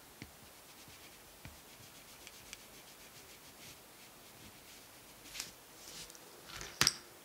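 Faint scratching and dabbing of a gold paint marker's tip along masking tape on a painted panel, with a few light ticks. Two sharper clicks come near the end as the pen is lifted away.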